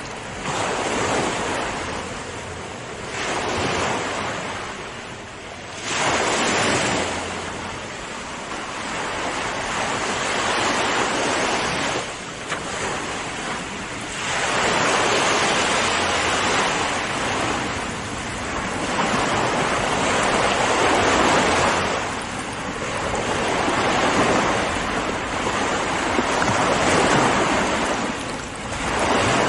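Ocean waves breaking and washing onto a shore, a continuous surf noise that swells and ebbs every few seconds, with a sharp surge about six seconds in.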